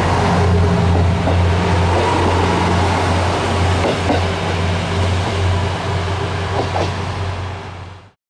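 Diesel engine of a red two-car KiHa 200 series railcar running with a steady low drone as the train pulls away from the station, with a few faint clicks; the sound fades out just before the end.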